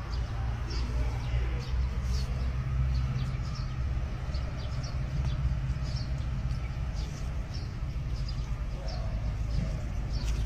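Short, faint bird chirps now and then over a steady low rumble.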